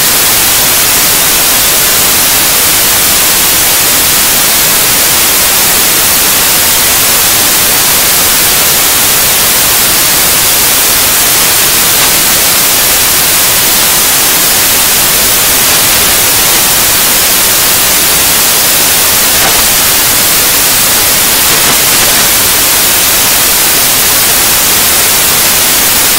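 Loud, unchanging static hiss like white noise, strongest in the high pitches, covering every other sound.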